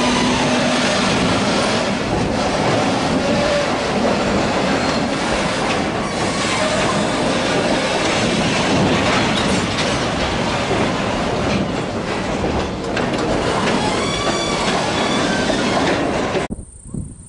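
Grain hopper wagons rolling slowly through yard points: steel wheels clattering over rail joints and crossings, with short bouts of high-pitched wheel squeal on the curves. The sound cuts off suddenly near the end.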